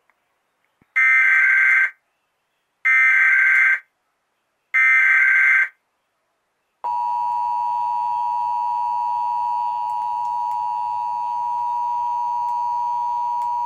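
Emergency Alert System test tones: three evenly spaced bursts of SAME header data, each about a second long. About seven seconds in, the steady two-tone EAS attention signal starts and holds.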